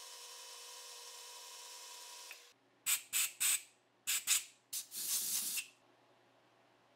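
Metal lathe running a boring cut with a high-speed-steel boring bar, a steady hum with a held whine, which cuts off about two and a half seconds in. Then a compressed-air blow gun fires short, sharp hissing blasts into the bore to clear chips: three quick ones, two more, and a last one lasting nearly a second.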